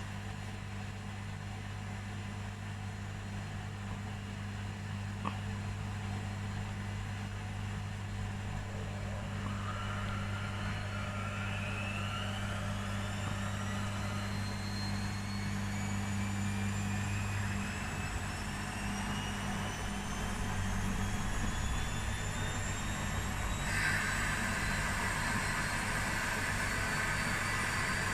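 Washing machine going from draining into its spin: a steady low hum stops a little past halfway, while the drum motor's whine climbs in pitch and the machine grows louder as the drum speeds up. Near the end a rushing noise suddenly gets louder.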